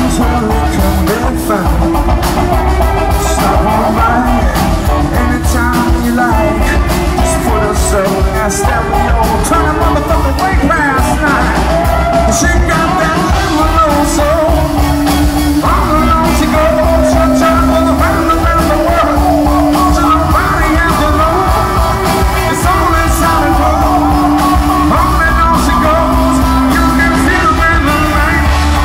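Live rock band playing at full volume, electric guitars, keyboard and drums, with a lead singer singing over them.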